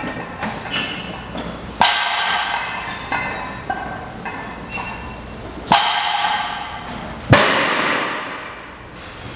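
Loaded strongman yoke, a steel frame with weight plates on its legs, clanking and rattling as it is carried. Three loud metallic clangs ring out, about two, six and seven seconds in, each followed by a ringing that dies away slowly.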